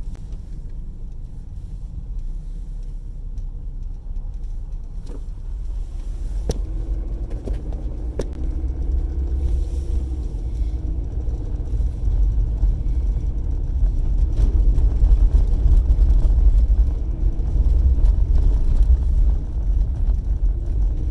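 Car cabin noise while driving: a steady low rumble of engine and tyres that grows louder about a third of the way in. A couple of sharp clicks come about six and eight seconds in.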